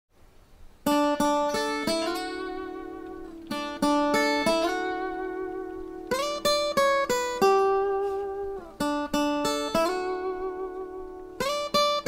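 Intro music on a plucked string instrument. It plays short phrases of a few quick notes, each note left ringing and fading, with a new phrase starting about every two and a half seconds.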